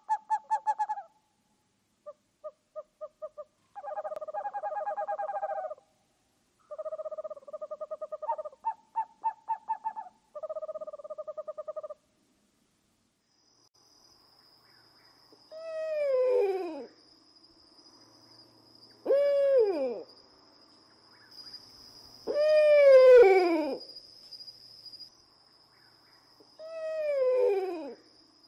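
Owl calls: for the first twelve seconds, groups of quick, pulsing hoots. After that come four long calls spaced a few seconds apart, each sliding down steeply in pitch, over a steady high-pitched whine.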